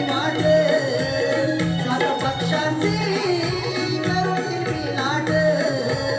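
Konkani Naman folk music: a singer's voice carrying a gaulan song melody over hand-drum strokes.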